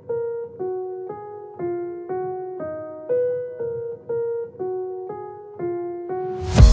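Background music: a keyboard melody of single notes, about two a second, with drums and a heavy bass beat coming in near the end.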